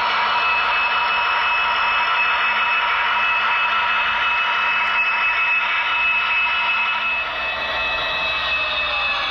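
Model train running: a steady whir and hiss of metal wheels on rail and a small electric motor, with a thin high whine held throughout. A few tones slide downward near the end.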